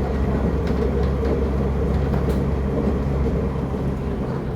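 CPTM Série 8500 electric train running between stations, heard from inside a carriage: a steady low rumble with a constant motor hum and a few faint clicks.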